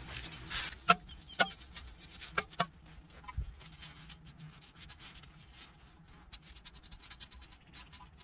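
Paintbrush bristles rubbing cooking oil onto a cast iron Dutch oven, a faint scratchy brushing. There are a few short, sharp sounds in the first three seconds.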